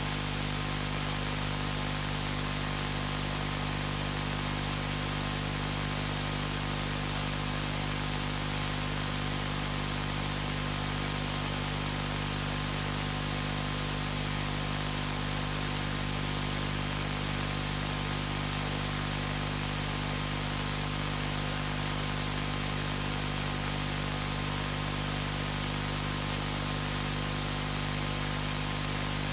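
Steady hiss with a constant low electrical hum underneath, unchanging throughout: the recording's noise floor.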